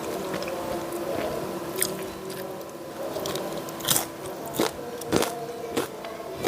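Close-up biting and chewing of a crispy fried jalakotek pastry, with about five sharp crunches, the loudest a little after the middle, over a faint steady hum.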